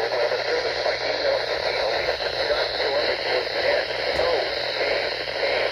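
A radio broadcast heavy with static and hiss, with a faint voice under the noise that is too weak to make out, over a steady low hum.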